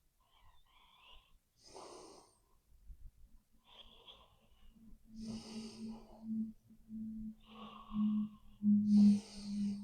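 A sleeping person breathing heavily and snoring: a run of separate noisy breaths, several with a high hiss. From about halfway a low steady tone sounds under the breaths and swells with them, loudest near the end.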